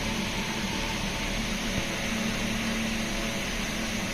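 Steady room noise: an even hiss over a low hum, with no change.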